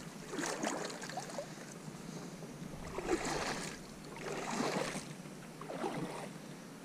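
Kayak paddle strokes in the water: a splashy swish about four times, a second or more apart.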